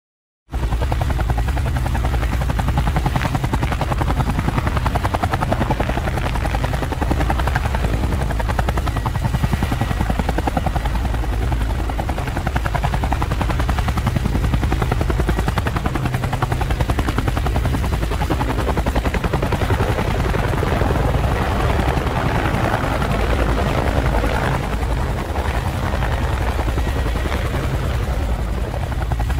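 Multirotor camera drone's propellers running steadily while it hovers, starting abruptly about half a second in.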